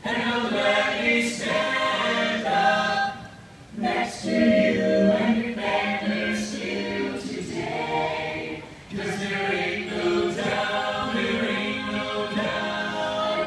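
Mixed-voice choir singing a cappella in sustained phrases, with two short pauses about three and a half and nine seconds in.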